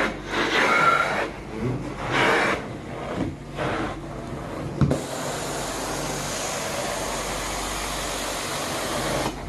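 Carpet-cleaning suction equipment working on carpet: a few short surges of rushing noise as strokes start and stop, then a steady rush from about five seconds in.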